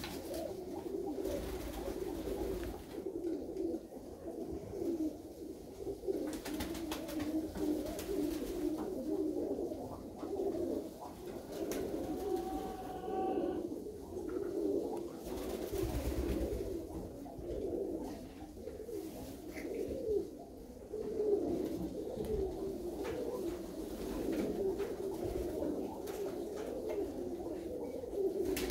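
A flock of Körös tumbler pigeon cocks cooing continuously, many voices overlapping without a break.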